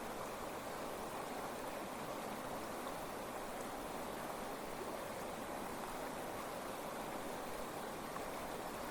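The Tama River flowing, a steady rush of stream water.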